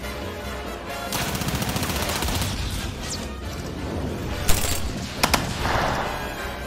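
Movie gunfire: a burst of rapid automatic fire lasting about a second and a half, then a loud single shot and, soon after, two quick sharp shots, over background music.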